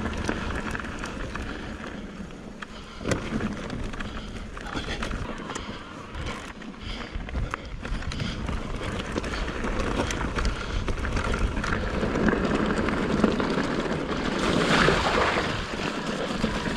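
Mountain bike riding over a rough trail: tyre noise on dirt and stones with many small rattles and knocks from the bike, and wind on the helmet-camera microphone. A louder rushing spell of tyre noise near the end.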